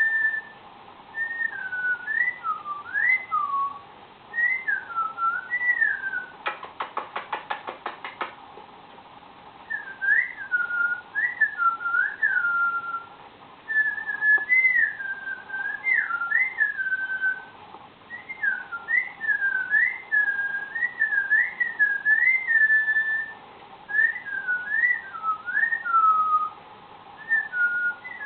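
Cockatiel whistling a long string of short warbling phrases that swoop up and down in pitch, broken about six and a half seconds in by a quick run of clicks.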